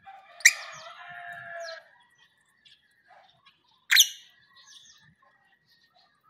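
Pet lovebird chirping. A sharp, shrill chirp about half a second in runs on into about a second of chatter, and a second short, sharp chirp comes about four seconds in.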